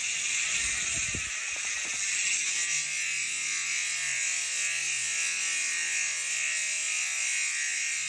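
Freewheel of a new Koozer XM490 rear hub buzzing steadily as the wheel spins freely, a high-pitched ratchet buzz. Background music comes in underneath after about three seconds.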